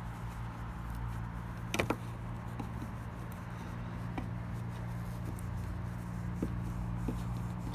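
Flathead screwdriver prying at the plastic clips of a Dodge Journey's rear tail lamp housing: a sharp double click about two seconds in, then a few fainter clicks, over a steady low hum.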